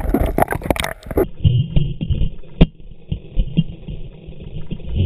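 Water sloshing and knocking against an underwater camera housing just below the surface. The sound is muffled, with splashing at first, then low knocks, a faint steady whine and one sharp click about two and a half seconds in.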